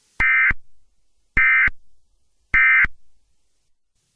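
Emergency Alert System end-of-message code: three short bursts of SAME digital data tones, each about a third of a second long and a little over a second apart, signalling the end of the alert.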